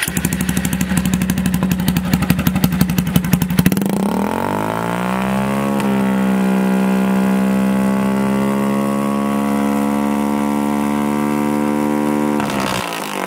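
Honda Bros 160's single-cylinder engine through a straight-through open exhaust: idling with a choppy beat, then revved up over about two seconds and held steady at about half revs until it drops back near the end.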